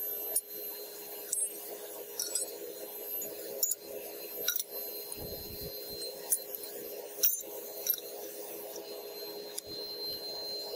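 Old brass taps and fittings being dropped one at a time into a crucible, each landing with a sharp metallic clink, about eight in all, over a steady low hum.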